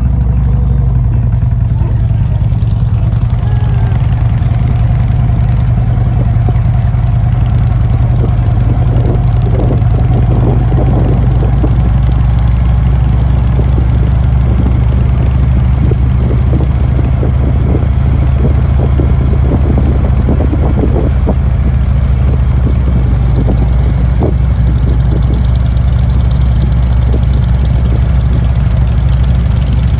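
Motorcycle engines running at low speed, a loud steady low drone, with irregular short knocks through the middle stretch.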